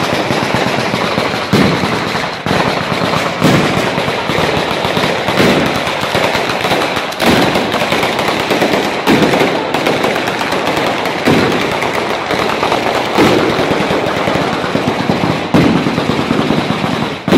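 A daytime firecracker battery (batteria) going off in a rapid, unbroken crackle of bangs, with heavier reports about once a second.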